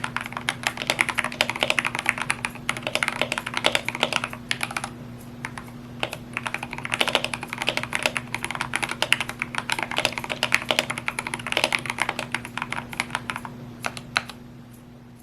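Fast typing on a GMMK 2 65% mechanical keyboard fitted with lubed Gateron Red linear switches: dense runs of keystrokes with brief pauses between bursts, thinning out near the end.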